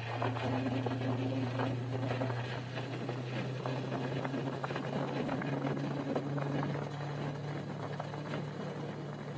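Motorcycle engine running at a steady road speed, a low even hum whose pitch steps up slightly about six seconds in, over a rushing noise of wind and road.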